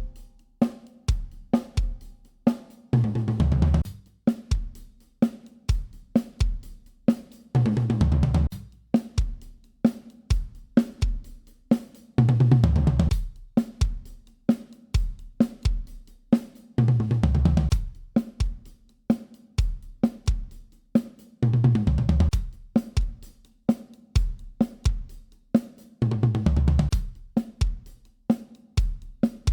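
Drum kit played as a steady groove, damped with magnetic felt-ring Muff Bite dampers on the drum heads. Kick, snare, hi-hat and cymbal strokes are broken about every four to five seconds by a short run of low drum hits, like a tom fill.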